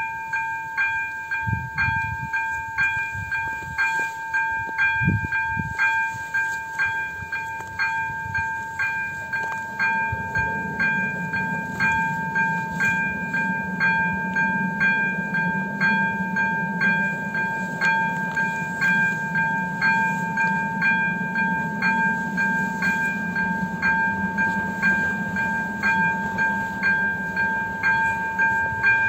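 Electronic warning bell of an AŽD 97 level crossing starting up, a steady high ringing tone with a sharp ding about twice a second, signalling that a train is approaching. A low rumble comes in beneath it about ten seconds in.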